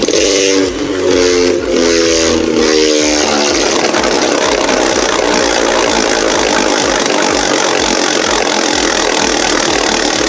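A remote-control Beyblade top (Genesis Valtryek V3) spinning on a plastic stadium floor, giving a steady whirring rattle. For the first three seconds or so a pulsing, buzzing tone sounds over it.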